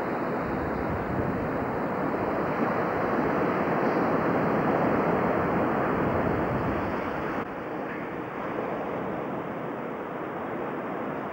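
Surf washing up onto a sandy beach, a steady rush that builds to a peak about halfway through; it drops suddenly about seven and a half seconds in and carries on more softly.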